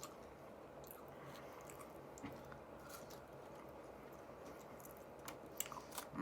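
A person chewing food quietly with faint mouth clicks and smacks, a few more together near the end, over a faint low hum.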